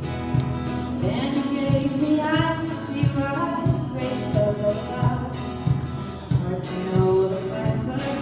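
A song with singing over instrumental accompaniment, the melody gliding over a steady, even beat.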